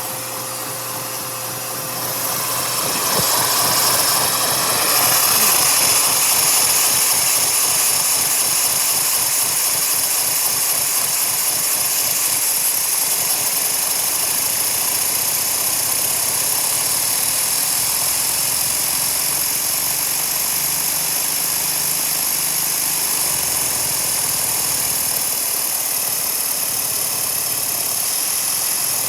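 A Lego motor starting up, getting louder about two to four seconds in, then running steadily with a high whir and a low hum.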